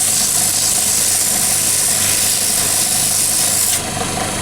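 Wood lathe motor running steadily while sandpaper is held against the spinning knife handle, a loud hiss of abrasion that lifts off about three and a half seconds in, leaving the motor hum.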